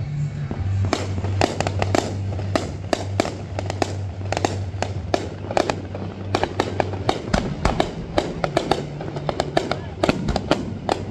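Fireworks going off in a rapid, irregular string of sharp bangs and crackles, several a second, as aerial shells burst.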